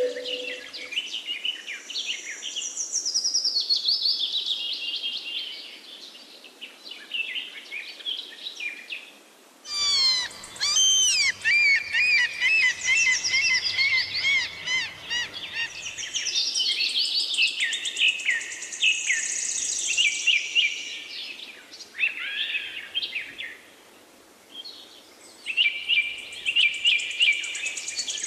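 Birds singing: many quick chirps and trills overlapping, with an abrupt jump to a different stretch of birdsong about ten seconds in.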